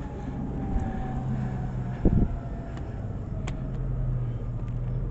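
Vehicle engine running steadily with a low hum, with a single loud thump about two seconds in.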